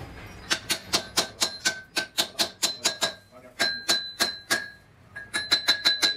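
Hammer tapping a cast truck wheel hub clamped in a lathe chuck, rapid strikes about five a second in three runs with short pauses, each ringing with a clear metallic tone, as the hub is seated and trued in the chuck jaws.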